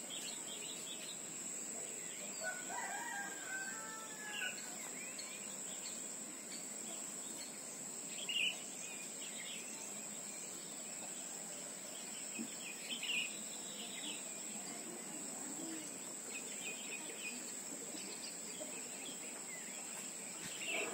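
Rural dusk ambience: a steady high-pitched insect trill throughout, with scattered short bird chirps and a faint rooster crow about two and a half seconds in.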